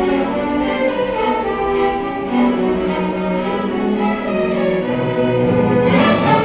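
Orchestra playing, with bowed strings prominent in held and moving notes, and a sharp crash near the end.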